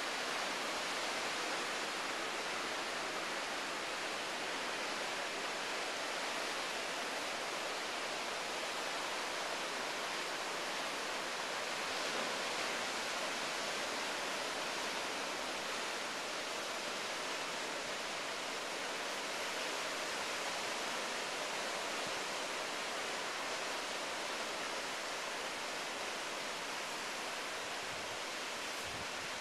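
Ocean surf breaking on a rocky shore, a steady hissing wash without distinct single wave crashes.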